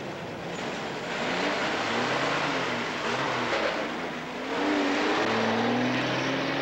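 A truck engine accelerating as the truck pulls away, its pitch climbing and dropping back more than once, with road noise throughout.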